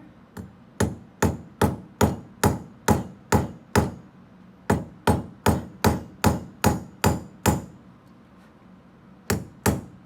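A hammer peening a metal rivet head over a tube spacer between two metal sheets, locking the rivet in. Steady blows come about two and a half a second, each with a short metallic ring. There are two runs of eight or nine blows with a brief pause between them, and another run starts near the end.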